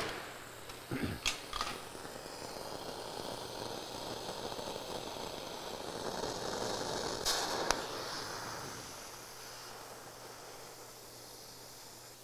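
Oxy-fuel cutting torch lit with a spark striker: a sharp pop as it ignites and a few clicks, then the steady hiss of the flame. Two sharp clicks come about seven seconds in, and the hiss grows softer after about nine seconds.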